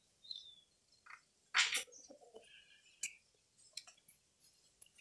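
A few short bird chirps, one falling briefly just after the start, over scattered dry rustles and clicks from corn husks being handled and tied. The loudest is a short rustle about one and a half seconds in.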